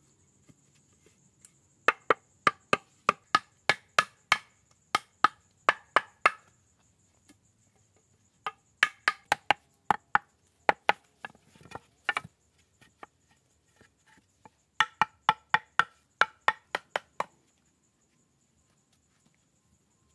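Chopping blows on wood, in three runs of quick, evenly spaced strikes about three a second, each a sharp knock with a brief ring, separated by short pauses.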